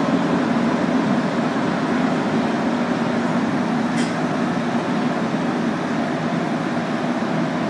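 Inside a rubber-tyred Montreal Metro Azur train running through the tunnel: a steady rumble, with a single light click about four seconds in.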